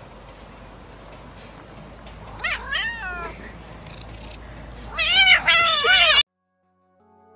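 A cat meowing: a short meow about two and a half seconds in, then a louder, longer, wavering meow about five seconds in that cuts off abruptly.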